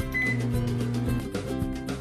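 Background music with a steady beat. About a fifth of a second in, a single short beep from the Hamilton Beach microwave's keypad as a button is pressed to start it.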